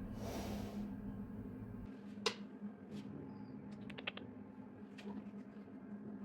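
Quiet room with a steady low hum and a few light, sharp clicks and taps, a quick cluster of them about four seconds in. A soft rush at the start cuts off suddenly about two seconds in.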